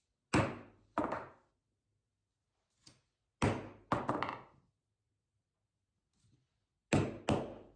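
Six sharp wooden thunks in three pairs, each pair about half a second apart, as small jatoba wood blocks are worked on the workbench with a hand-held pointed tool to mark their centers.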